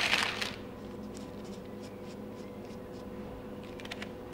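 Parchment paper rustling as it is handled, stopping about half a second in. After that a steady faint hum, with a few soft taps and rubs of fingers on the dough and paper.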